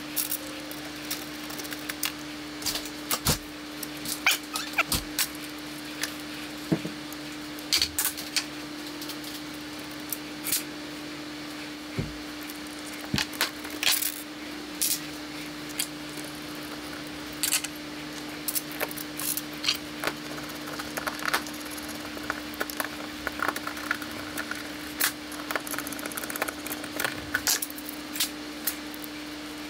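Light, irregular metallic clicks and taps as small carburetor parts (screws, jets, float bowl) are handled and set down on a 24 mm Mikuni carburetor and an aluminium tray during reassembly. A steady low hum runs underneath.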